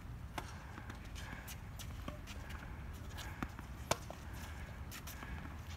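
Tennis rackets hitting a ball and the ball bouncing on a hard court in a rally: a serve struck about half a second in, then scattered sharp pops, the loudest a nearby forehand about four seconds in. A low steady rumble runs underneath.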